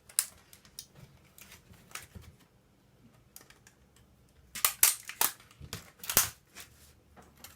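Sharp plastic clicks and snaps of a computer keyboard's casing and parts being pried and broken apart by hand, sparse at first, with a quick run of louder cracks about four and a half to six seconds in.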